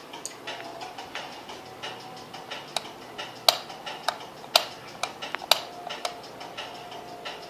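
Push-button of a wall light switch pressed repeatedly, giving about seven sharp clicks in quick succession in the middle of the stretch. Behind them runs a faint, regular ticking.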